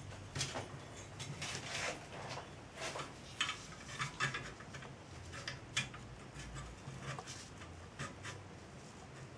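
Small metal parts of a model steam traction engine being handled and fitted by hand: irregular light clicks, taps and scrapes as a sheet-metal throatplate is set in place, over a faint low hum.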